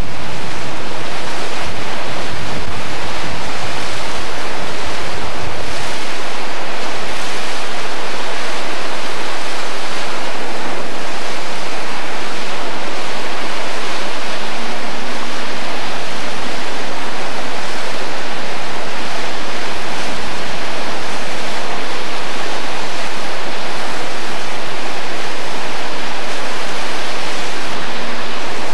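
Loud, steady rushing hiss, even across low and high pitches, with no speech or music.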